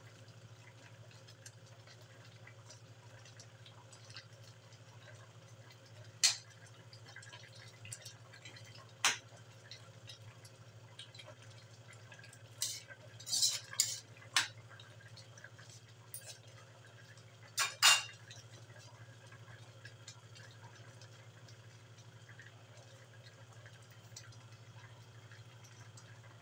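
A ladle clinking and scraping against the sides of an aluminium wok while stirring a coconut-milk stew: a handful of sharp, separate clinks, the loudest near the middle and about two-thirds of the way in, over a steady low hum.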